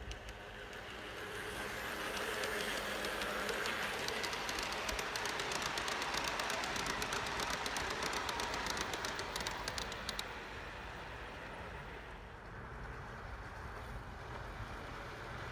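Large-scale garden model train of hopper cars rolling past on metal track: a steady rolling rumble with rapid clicking of the metal wheels over the rail joints. It builds up, then the clicking stops suddenly about ten seconds in, leaving a quieter rolling sound that grows again near the end as a model diesel locomotive approaches.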